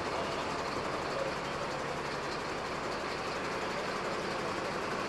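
Fire truck engine idling steadily, a continuous even running sound with no distinct events.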